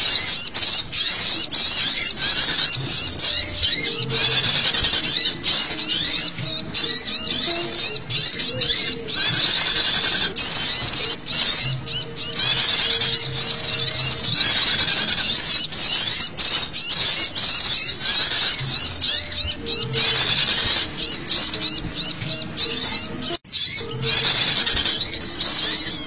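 A bird-lure recording of small forest birds calling excitedly (the agitated 'ribut' calls used to draw in sunbirds and white-eyes). It is a dense, unbroken chatter of high-pitched chirps and quick rising-and-falling twitters, with some lower drawn-out notes underneath. The sound cuts out for an instant near the end.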